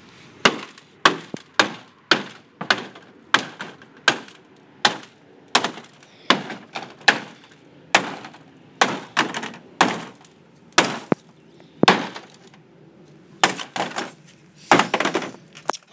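Hammer blows smashing the broken remains of an iPhone 3GS, its circuit board and cracked glass, on the plastic floor of a kiddie pool. About two sharp strikes a second, with a quicker flurry of blows near the end.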